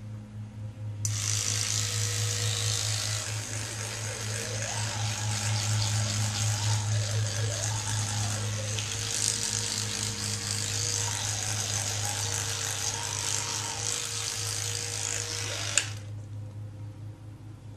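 Electric toothbrush switched on about a second in, buzzing steadily as it scrubs against teeth, then switched off suddenly about two seconds before the end.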